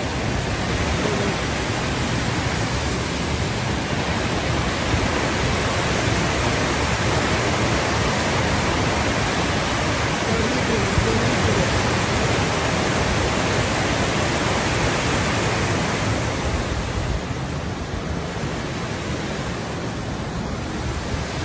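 Floodwater rushing in a swollen mountain torrent thick with mud and debris: a steady, loud roar of water that softens a little near the end.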